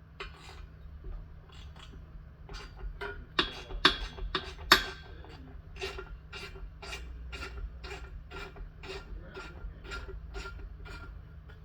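Hand tool working small screws loose on a small Briggs and Stratton engine: sharp metallic clicking in an even run of about two or three clicks a second, with a few louder clanks a few seconds in.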